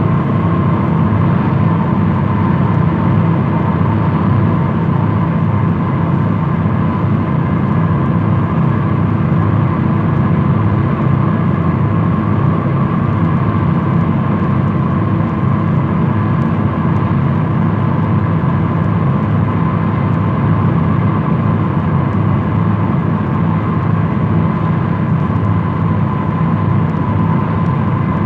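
Short Sunderland flying boat in cruise, heard inside from the flight deck: the steady drone of its four piston engines, a dense low rumble with a thin higher hum, unchanging throughout. An old recording transferred from a 78 rpm disc.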